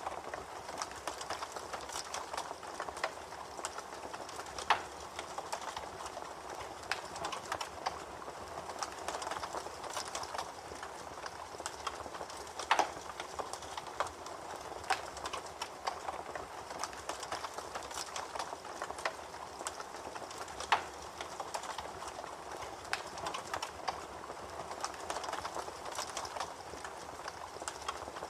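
Campfire crackling: a steady hiss with irregular sharp pops and snaps of burning wood, a few of them louder.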